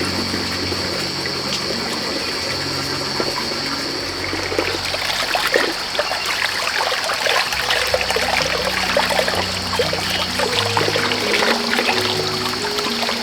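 Water trickling and splashing, growing busier about four seconds in, over soft background music with slow low notes.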